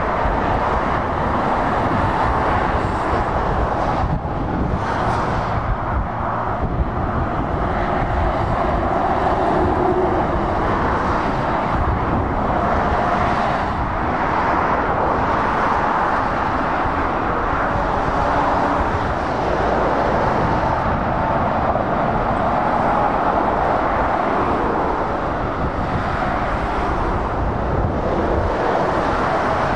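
Steady road traffic on a dual carriageway: lorries and cars passing, a continuous blend of tyre and engine noise with no single pass standing out.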